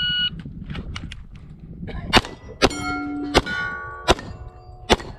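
A shot timer gives its start beep, and about two seconds later a pistol fires five shots in under three seconds, roughly one every 0.7 s. The struck steel plates ring after the hits. The last shot falls about five seconds after the beep, which is the 4.95 s string time called out.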